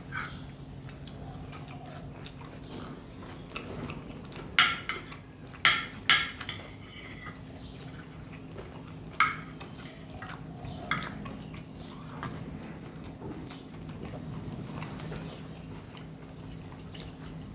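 Knife and fork clinking and scraping on a plate, with a cluster of sharp clinks about five to six seconds in and a few more later, and quiet chewing in between.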